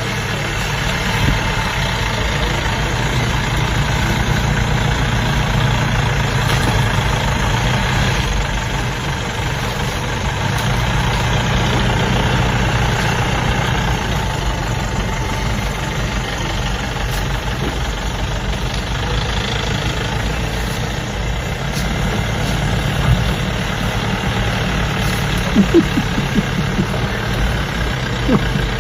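Vehicle engine idling steadily with a low, even drone.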